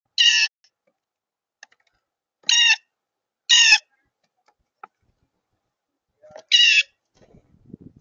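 Blue jay giving four loud, harsh jay calls, each short, spaced over several seconds, with a few faint ticks between them and faint low rustling near the end.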